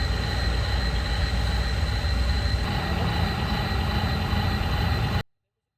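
Toy excavator running: a steady low rumble with a thin, steady high whine over it, cutting off suddenly about five seconds in.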